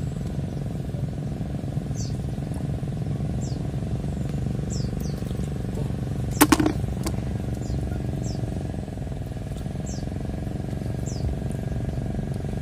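A steady low motor drone, with a bird repeating a short, high chirp that falls in pitch about once a second. A sharp clatter comes about six seconds in.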